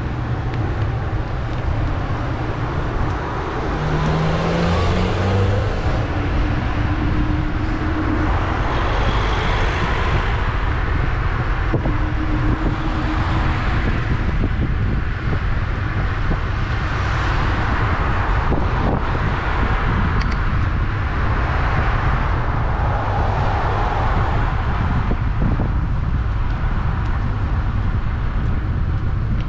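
Street traffic: motor vehicles pass one after another, a swell every few seconds, over a steady low rumble.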